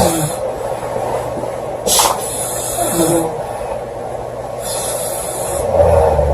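A woman snoring loudly, with one heavy rasping snore near the end and breathy hissing between snores. A brief sharp noise comes about two seconds in.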